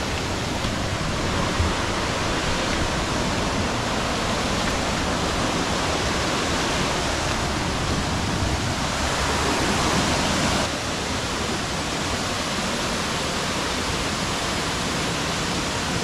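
Steady rushing of water falling down the 60-metre Miyunu Ella waterfall.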